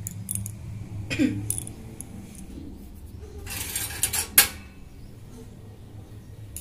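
Steel kitchen utensils clinking and clattering in a dish rack: a few clinks about a second in, a short rattle, then one sharp clank about four and a half seconds in. A low steady hum sits underneath.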